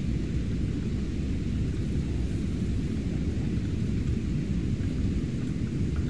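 Wind rumbling steadily on the microphone, a low, even roar with no let-up.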